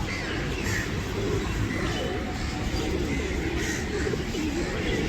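A large flock of birds calling together: a dense, steady chorus of many low calls with scattered higher chirps.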